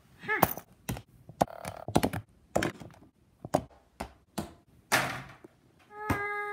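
A small rubber toy basketball bouncing on a hardwood floor, about a dozen sharp taps at uneven spacing, roughly two a second. Near the end a single thump, then a held, steady-pitched voice note begins.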